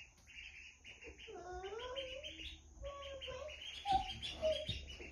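Cayuga–Pekin cross ducklings peeping in a rapid, continuous string of short high peeps.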